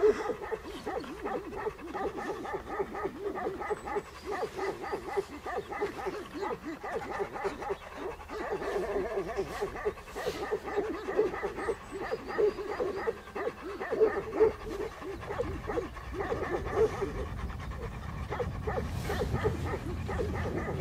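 Several Tibetan mastiffs barking and yelping over and over, many short calls overlapping. A low rumble comes in over the last few seconds.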